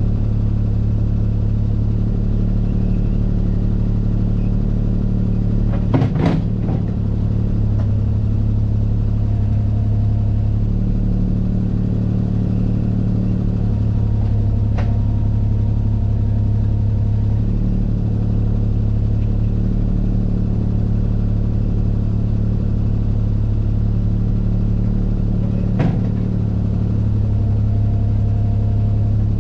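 Bobcat skid-steer loader engine running steadily at working speed, with sharp knocks about six seconds in and again near the end.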